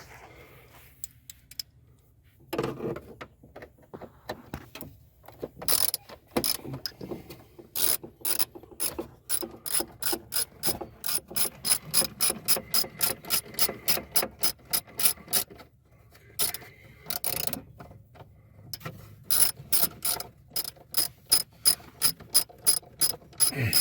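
Hand ratchet clicking as it is worked back and forth on a fastener, in quick runs of sharp clicks about three a second, with a pause of a few seconds partway through.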